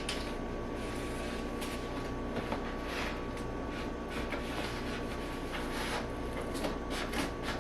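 Cardboard packaging scraping and rustling as it is worked at by hand, a few faint short scrapes over a steady background hum.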